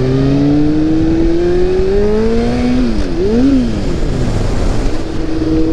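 Kawasaki motorcycle engine under way, its pitch climbing steadily under acceleration for about two and a half seconds, then falling and rising twice quickly around three seconds in before settling to a steady cruising note.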